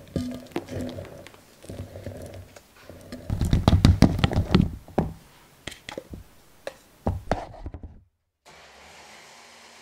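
Ingredients being tipped into a plastic food-processor bowl: a run of irregular knocks and thuds as powdered sugar and butter cubes land in it, loudest about three to five seconds in and thinning to separate clicks. Near the end it cuts abruptly to a steady faint hiss.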